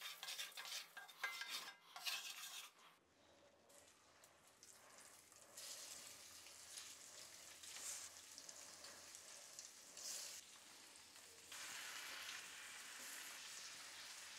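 A wooden spatula scrapes and stirs turmeric, chilli powder and salt in oil in a cast iron frying pan for the first few seconds. From about five seconds in, faint oil sizzling follows as whole boiled eggs and brinjal pieces fry, steadying near the end.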